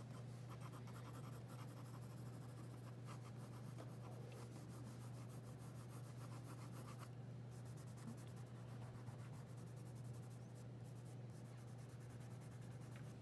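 Pencil shading on drawing paper: faint, quick repeated hatching strokes, dense at first and thinning out after about seven seconds, over a low steady hum.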